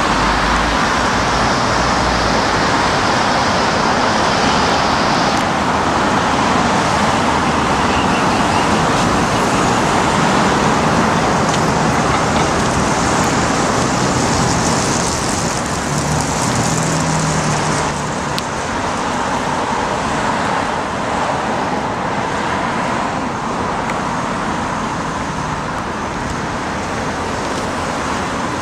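Steady city street traffic: cars driving past on the road, a continuous hiss of tyres and engines that swells a little in the middle.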